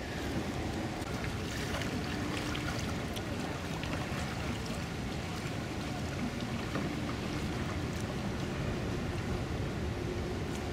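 Steady rushing of wind and water around canoes being paddled, with a few faint clicks.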